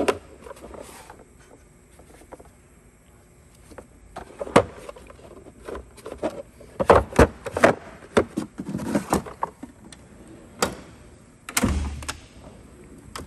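Metal hand tools and sockets clinking and knocking in a steel tool chest, with a drawer sliding on its runners near the end.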